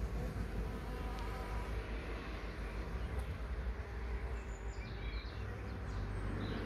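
Honeybees buzzing at a hive entrance: a steady hum, over a low rumble.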